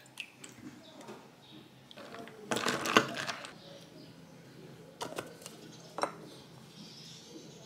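Plastic screw lid being twisted off a jar of chocolate hazelnut spread, a burst of clicking and scraping about two and a half seconds in, then two sharp clicks as the lid and jar are handled. A low steady hum runs underneath.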